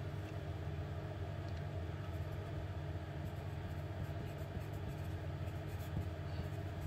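Steady low hum of room background noise, without speech.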